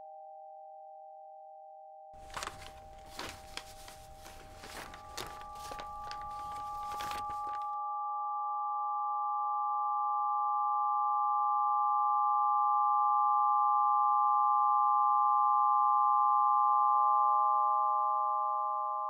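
Film score drone of steady held electronic tones, a low pair joined by higher tones about five seconds in, swelling gradually louder and easing off near the end. From about two to eight seconds in, a run of irregular clicks and knocks sounds over it.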